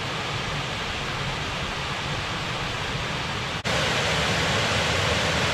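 Water pouring over Ladybower Reservoir's bellmouth overflow (the 'plughole') and down its shaft at full flow: a steady rushing noise, 'one hell of a noise'. It drops out for an instant about three and a half seconds in and comes back louder and brighter.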